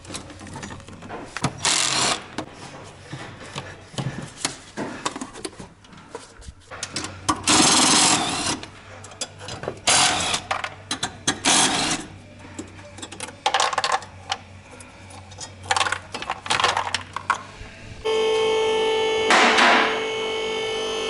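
Short bursts of a power wrench undoing bolts under a car, with ratchet clicks and tool clatter between them. In the last three seconds a steady whine sets in, with one more burst over it.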